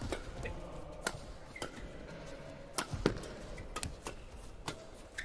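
Badminton rally: sharp cracks of rackets striking the shuttlecock about once a second, with quicker double hits near the net.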